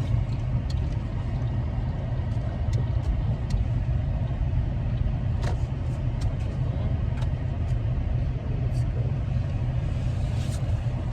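Steady low rumble of a car's engine and road noise, heard from inside the cabin while driving, with a few faint clicks.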